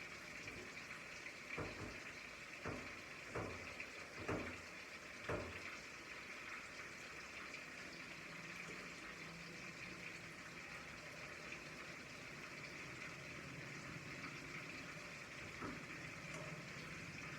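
Food cooking on the stove: a steady, watery hiss with about five light knocks in the first few seconds.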